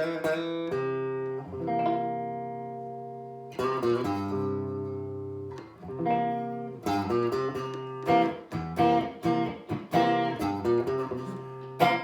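Maestro (Gibson) EA250T electric guitar played with both neck and bridge pickups on: chords strummed and left to ring, then a quicker rhythmic strummed pattern from about eight seconds in.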